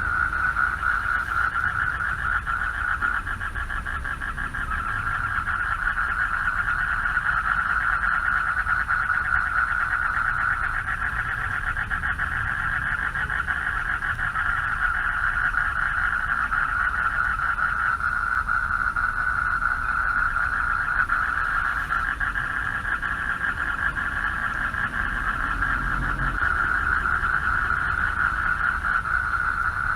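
Chorus of male frogs calling for mates from a pond: many overlapping calls blending into a dense, rapidly pulsing trill that holds steady throughout.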